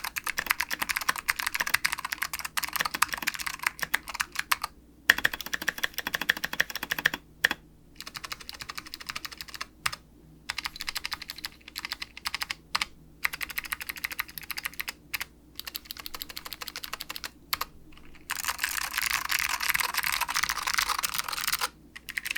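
Tiger80 Lite mechanical keyboard with Alps SKCM White switches, a carbon-fibre plate and Tai Hao Cubic keycaps, being typed on. The first five seconds are fast continuous typing, followed by single key presses and short runs with pauses between. Fast typing returns near the end.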